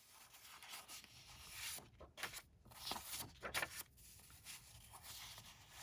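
Sheets of patterned craft paper rustling and sliding against each other as they are handled, in a few short, faint swishes.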